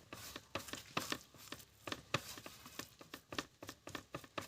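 Wet spice masala being mixed in a bowl: a run of irregular quick clicks and taps, several a second.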